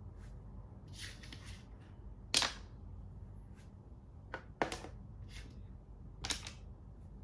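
Plastic Thai chess pieces being picked up and set down on a plastic board: a few sharp clicks, the loudest about two and a half seconds in and two close together near four and a half seconds, with soft handling sounds between.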